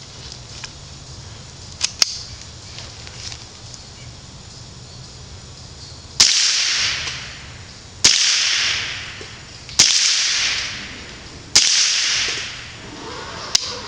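Ruger .22 Long Rifle rifle firing four shots about two seconds apart, each sharp crack trailing off in a long echo. A few light clicks come before the shots and one after them.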